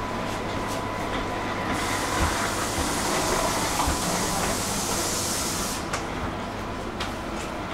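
Steady hum inside an SKM electric commuter train carriage, with a loud hiss of compressed air starting about two seconds in and lasting about four seconds, then a few light clicks.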